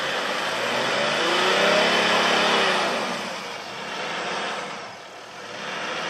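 Toyota Land Cruiser 100-series engine revving hard while the SUV is stuck at the foot of a muddy bank, its wheels slipping in the mud. The engine note rises to a peak about two seconds in and falls away, then swells twice more, less strongly.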